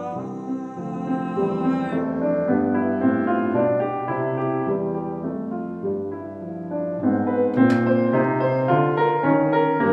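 Grand piano playing a classical art-song accompaniment as a solo passage, with a woman's sung note ending about two seconds in. One brief sharp click sounds near the end.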